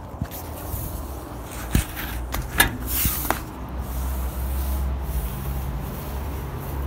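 Canvas awning fabric rustling and swishing as it is swung closed and folded away by hand, with a few sharp knocks in the first half and a steady low rumble in the second half.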